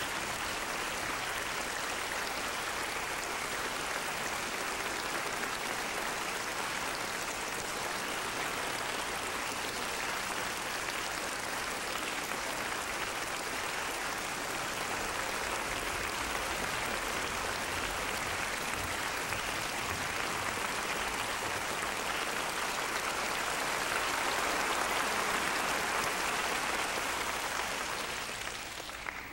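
Concert-hall audience applauding steadily, a sustained ovation calling the performers back for a bow. It swells a little near the end, then fades away.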